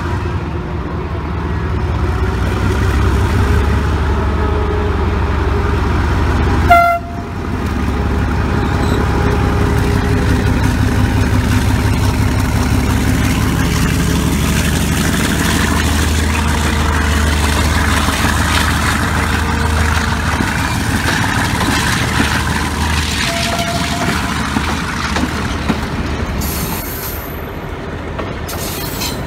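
Diesel-electric locomotive engine running with a steady low rumble as it hauls a passenger train past, with one short, sharp horn toot about seven seconds in.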